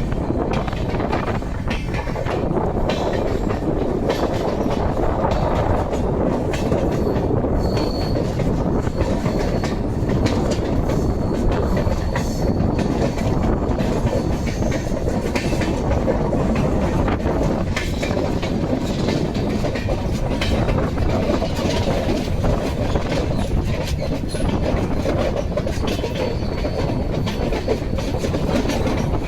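Train running: a steady rumble with frequent small clicks and knocks.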